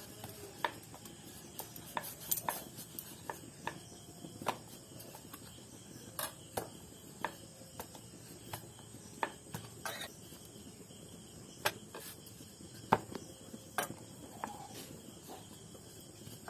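Wooden rolling pin working dough on a round wooden board, with irregular light wooden knocks and clicks, about one or two a second, as the pin rolls and taps against the board.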